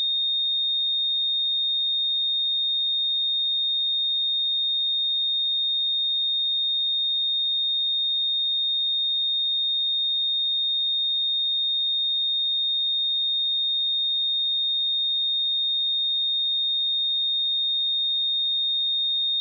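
A pure 3683 Hz sine-wave test tone, held steady at one high pitch and an even level.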